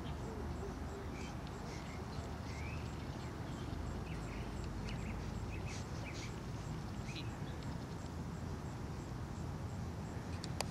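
Small birds chirping now and then over a steady low outdoor rumble, with a sharp click right at the end.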